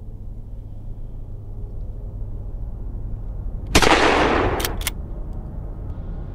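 A single shotgun blast a little over halfway through, sudden and loud, fading over about a second, followed by two sharp clicks a fraction of a second apart, over a steady low rumble.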